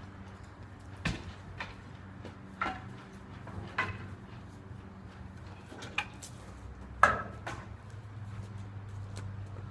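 Boards and debris thrown into a steel roll-off dumpster, landing with a string of about seven bangs and clatters. The loudest bang comes about seven seconds in.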